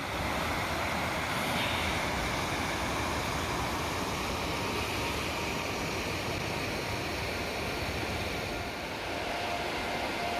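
Steady rush of falling white water, an even roar with no letup.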